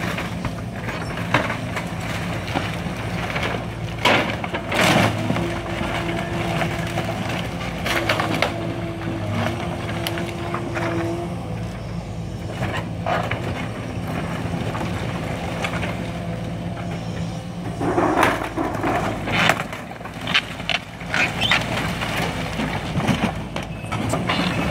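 A demolition machine's engine running steadily while the wooden structure is crushed and broken, with loud cracking crashes about four to five seconds in and again around eighteen to twenty seconds in.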